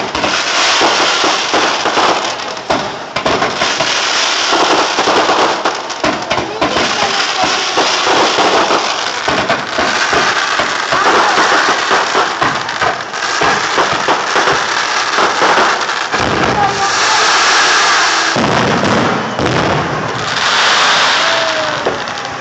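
Aerial fireworks display going off without pause: dense crackling and popping with repeated bangs from shells and crackling comets.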